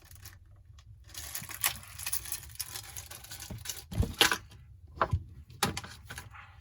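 A spatula-type pry tool scraping and working at the edge of an iPhone 11's screen, followed by a few sharp clicks and taps about four to five and a half seconds in.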